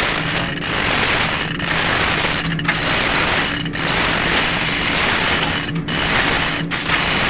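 Manual chain hoist lifting an engine block: the hand chain rattling and the ratchet pawl clicking in a continuous clatter that dips briefly about once a second.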